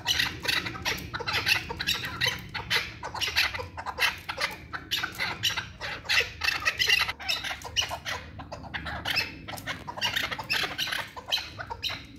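Chukar partridge calling: fast runs of short, sharp clucking notes, several a second, with brief pauses between the runs.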